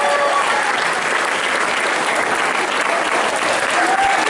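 Theatre audience applauding steadily: dense clapping from a full house.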